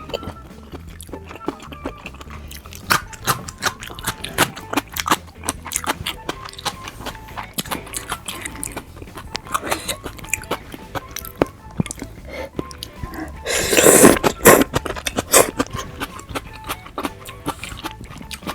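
Close-miked chewing of raw fish and sushi, with many small wet mouth clicks and a louder slurp lasting about a second near the end, over soft background music.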